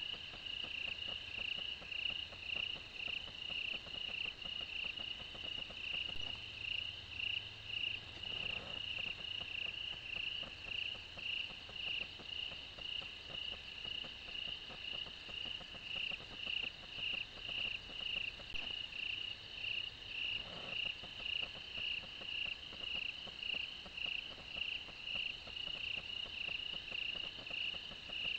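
Night-calling insects chirping in a steady, even rhythm, about two chirps a second, with no let-up.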